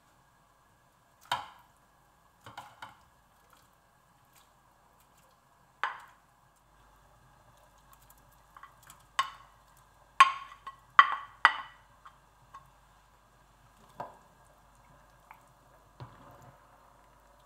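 Kitchen utensils knocking against cookware: about ten sharp knocks at uneven intervals, with three loud ones in quick succession just after the middle.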